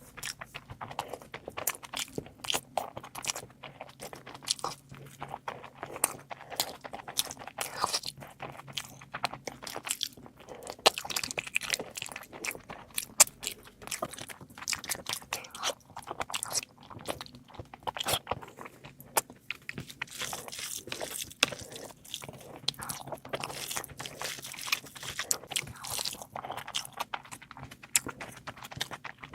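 Close-miked eating of meat curry: continuous biting and chewing with frequent crunches, a dense irregular run of clicks and crackles.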